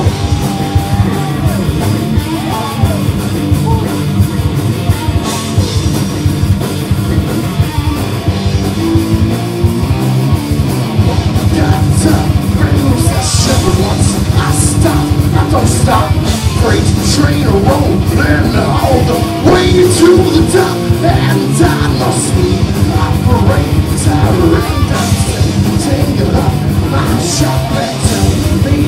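Rock band playing heavy music live and loud: electric guitars and a drum kit with frequent cymbal hits.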